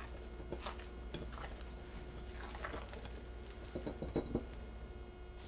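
Faint, soft handling sounds of hands deflating risen bread dough in an oiled glass bowl and pulling it out, with a few light taps about four seconds in.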